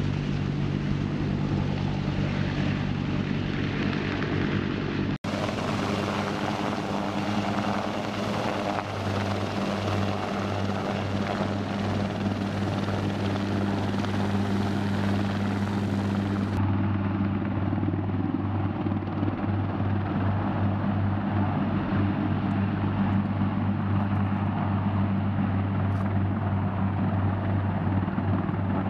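AH-1 Cobra attack helicopter's rotor and turbine engines running, a steady hum with a low pitched drone, broken by a brief dropout about five seconds in.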